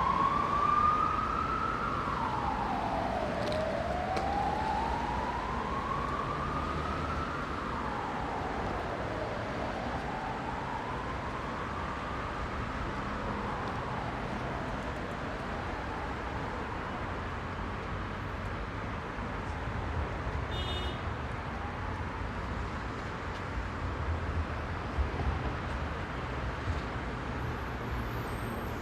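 An emergency vehicle's siren wailing in slow rising and quicker falling sweeps, loudest at first and fading away over the first fifteen seconds or so, over the steady rumble and hiss of heavy road traffic. A brief high-pitched squeal about twenty seconds in.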